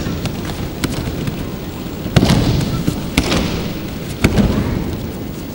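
Bodies hitting tatami mats as attackers are thrown and take breakfalls: several heavy thuds and slaps, the loudest about two, three and four seconds in, each trailing off in a large hall.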